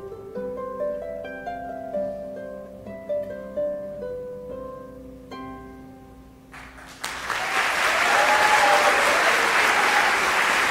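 A harp playing the closing phrase of a solo piece, single plucked notes ringing and fading. About two-thirds of the way through the playing stops and audience applause breaks out, growing louder.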